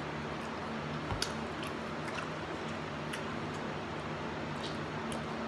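Faint chewing and wet mouth sounds of someone eating sauced chicken wings and licking her fingers, with a small knock about a second in, over a steady low hum.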